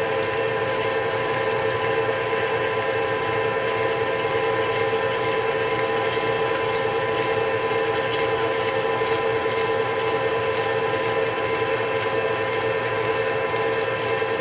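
Indexable-insert spade drill boring deep into a solid bar turning at 500 RPM in a manual lathe, under flood coolant: a steady cutting and machine drone with a constant tone, mixed with the spatter of coolant thrown off the spinning work.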